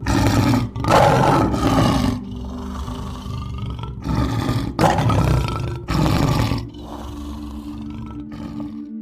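A large animal roaring in four or five loud bursts, deep and rough, over the first seven seconds. After that only a steady low hum remains.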